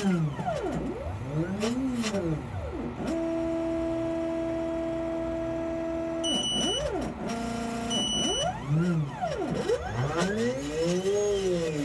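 Stepper motors of a CNC machine driving its axes through an automatic touch-probe cycle that finds a block's zero point: whines that rise and fall in pitch as each quick move speeds up and slows down, and a steady tone for about three seconds during a slow probing feed. Two short high beeps sound a little past the middle.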